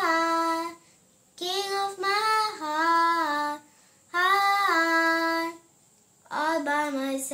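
A young girl singing a Christian worship song unaccompanied, in four short phrases of held notes with brief pauses between them.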